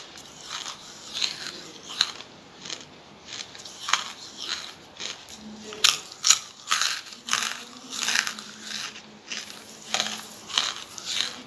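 Charcoal being bitten and chewed close to the mouth: irregular crisp crunches, several a second, with the sharpest bites about six seconds in.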